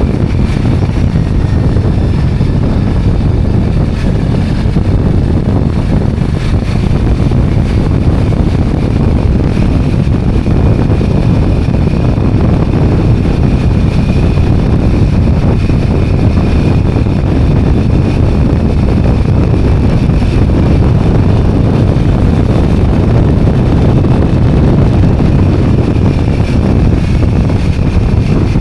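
Steady, loud wind rush buffeting the microphone while riding a motorbike or scooter, with the two-wheeler's running engine underneath.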